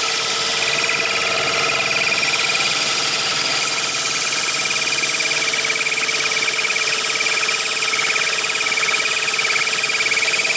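Two drills clamped as a makeshift wood lathe, running steadily at speed with a constant high motor whine as they spin a turned wooden post. From about three and a half seconds in, sandpaper held against the spinning wood adds a hiss.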